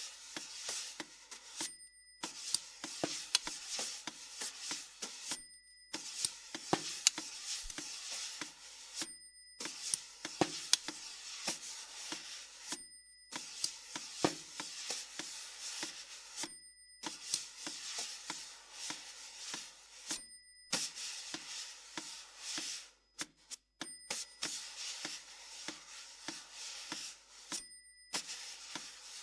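Snare drum played with extended techniques: rubbing and scraping on a drumhead covered with paper and an upturned plastic cup, with many light taps and clicks. The sound cuts off abruptly into short silences every few seconds, and faint high steady tones sound at those breaks.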